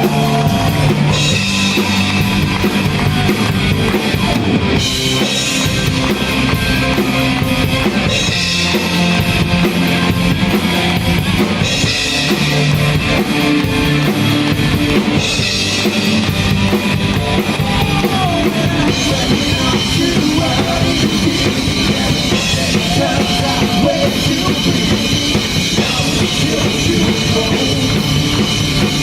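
Live rock band playing: a drum kit with cymbals keeps a steady beat under electric guitar and bass.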